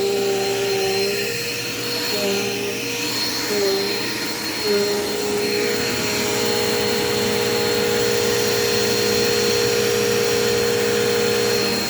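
Dirt Devil Quick Power upright vacuum cleaner running on carpet, a steady motor hum with a high whine. The hum wavers a few times in the first half, then holds steady from about halfway through.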